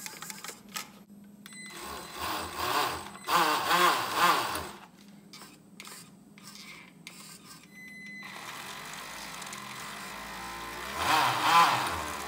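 Small brushed electric motor of an RC boat's outboard propeller drive whining as the throttle is worked, its pitch sweeping up and down in bursts. First a quick series of rises and falls, then a longer run that builds to a peak near the end. This is a first bench test of the motor on the new electronics.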